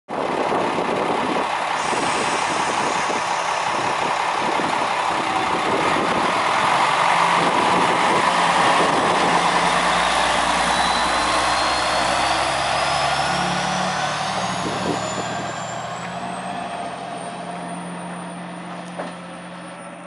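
JR West KiHa 120 diesel railcar pulling away from the platform, its diesel engine running under load and loudest about halfway through, then fading as it moves off. A whine climbs steadily in pitch over the second half.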